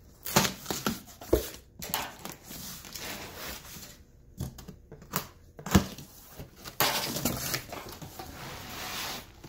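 Packing tape tearing and cardboard rustling and scraping as a large cardboard box is pulled open and the outer box is slid off, with a couple of dull knocks.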